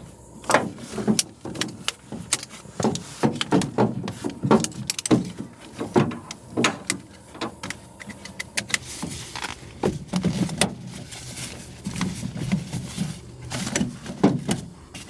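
Objects being handled: a rapid, irregular run of clicks, knocks and clatters.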